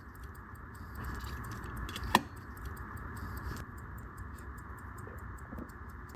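Pocket watch movement ticking faintly and evenly, with a single sharp click about two seconds in.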